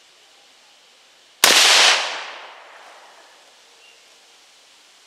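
A single shot from a 300 Blackout AR-style rifle firing a powder-coated 155-grain cast lead bullet, about a second and a half in. The report rings out and fades over about a second.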